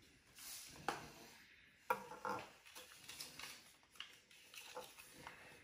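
A plastic Easter egg being handled and opened, and the paper note inside unfolded: a few sharp plastic clicks, the strongest about two seconds in, with soft paper rustling between them.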